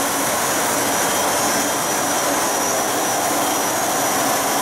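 ASL RT3 ride-on concrete grinder running with its attached ASL 220V dust vacuum: a loud, steady rushing noise with a thin high whine over it.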